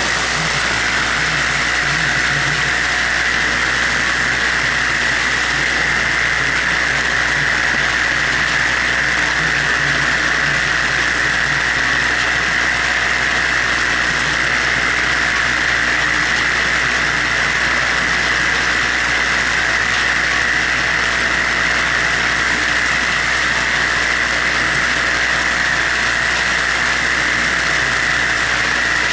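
Vibratory bowl feeder running steadily: the hum of its vibratory drive under a constant rattle of plastic caps vibrating along the stainless steel bowl and discharge track.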